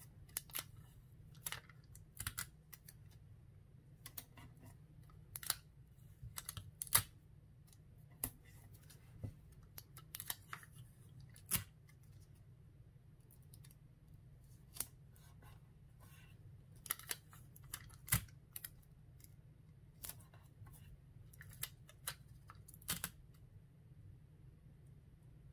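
Clear Scotch tape being torn off and pressed down along the edges of a plastic jewelry bag on a card: irregular sharp clicks, snaps and crinkles, some loud, over a faint steady low hum.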